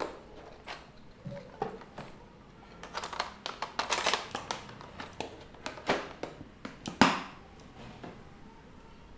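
Clicks, taps and knocks of craft tools and small objects being handled and set down on a worktable, with a quick flurry of them about three to five seconds in and one loud knock about seven seconds in.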